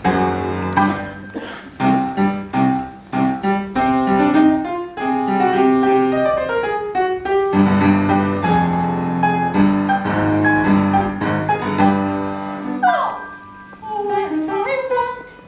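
Upright piano played live: quick successions of struck notes, then fuller low chords from about halfway through, growing quieter near the end.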